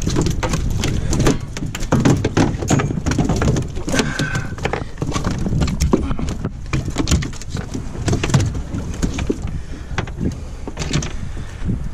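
Freshly landed mahi-mahi thrashing on the boat deck, its body and tail slapping the deck in a rapid, irregular run of knocks.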